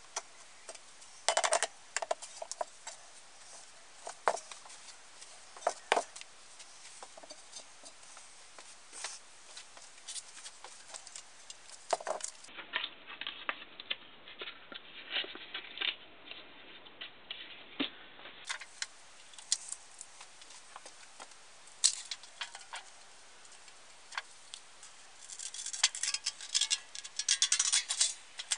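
Small metal stove parts being handled and fitted by hand: scattered clicks and light metallic taps. Near the end, a quick run of snips as a thin sheet is cut with shears.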